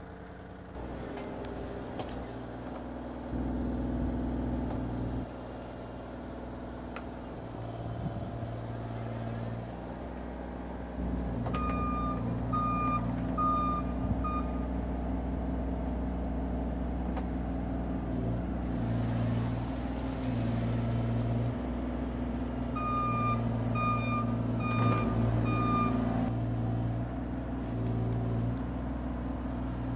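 Bobcat E35i mini excavator's diesel engine running under load while it digs and scrapes clay, its level swelling and easing as the work goes. A reversing-type alarm beeps in two short runs of four or five evenly spaced beeps, about twelve and twenty-three seconds in.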